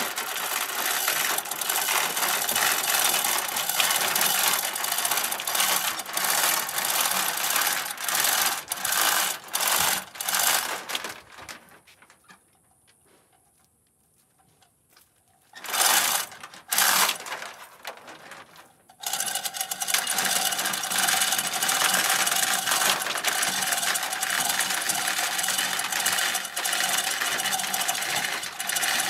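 Rapid, steady mechanical clatter of a power tool working on the Beetle's chassis, run in long stretches. It stops for a few seconds near the middle, gives two short bursts, then runs on steadily.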